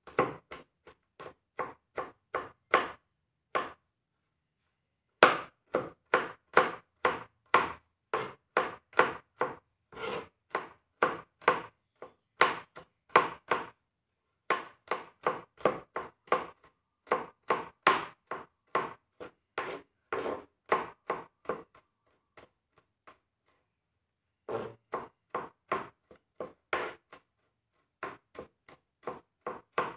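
Kitchen knife chopping and mincing garlic on a plastic cutting board: a steady run of knocks about two a second, with two short breaks, one about four seconds in and one past the twenty-second mark.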